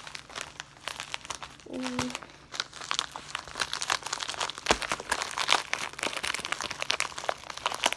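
Plastic USPS Priority Mail mailer crinkling as fingers grip, pinch and pull at its sealed end, trying to tear it open by hand. The crackling gets much denser after about two and a half seconds, with a short hummed voice sound just before that.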